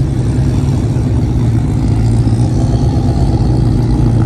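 Pickup truck engines running at low speed, a steady low engine rumble that holds even throughout.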